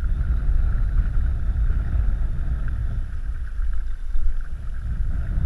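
Steady wind rumble on the microphone aboard a small skiff on open water, with a constant hiss higher up and no distinct knocks or calls.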